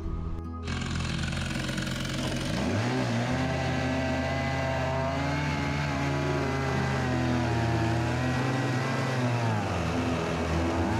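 Large long-bar chainsaw running at full throttle under load, ripping through an elm log in a chainsaw mill. Its pitch wavers slightly through the cut. It starts abruptly about a second in, over a steady music bed.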